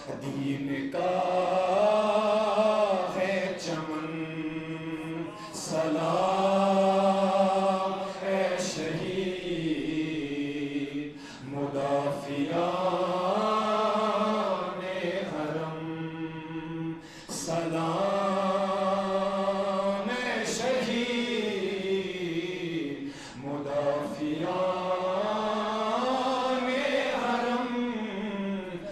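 A man chanting a devotional recitation into a microphone, in long held melodic phrases of a few seconds each, gliding up and down in pitch, with short breaths between them.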